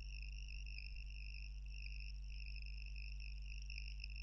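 Faint steady background with no speech: a constant high-pitched whine over a low electrical hum.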